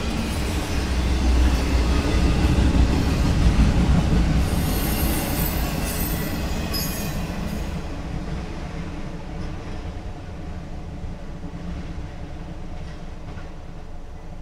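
Norfolk Southern intermodal freight train rolling past, its wheels rumbling and clacking over the rails, with a few high wheel squeals about halfway through. The sound fades over the last several seconds as the train moves off.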